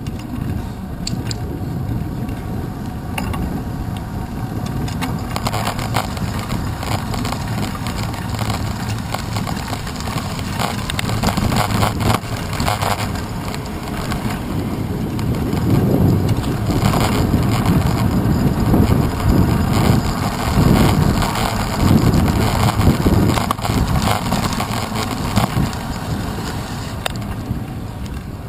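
Steady wind and road rumble on a handlebar-mounted GoPro Hero 2 as the bicycle rolls along, with occasional knocks and rattles over bumps in the pavement. It grows louder in the second half.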